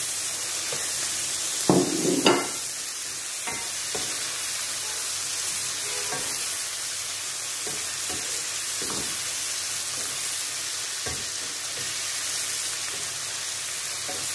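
Chicken and bell pepper strips sizzling in a hot frying pan while a wooden spoon stirs them, with a few scrapes and knocks of the spoon against the pan, the loudest about two seconds in.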